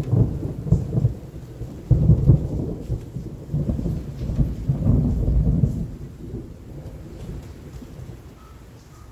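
Thunder rumbling in rolling swells, loud for the first six seconds or so and then fading away.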